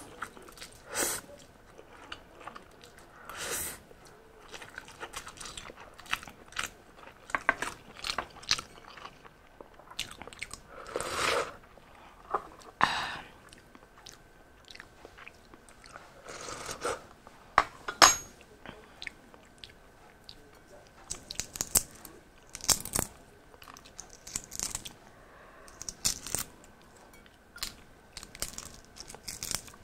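Close-miked eating: wet chewing and slurping of Samyang spicy instant noodles, with a string of short clicks and one sharp click about eighteen seconds in. Near the end, a balut eggshell is cracked and peeled with the fingers.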